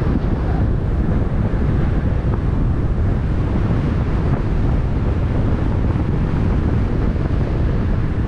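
Steady wind buffeting the microphone on the open deck of a boat under way, with the wash of water underneath.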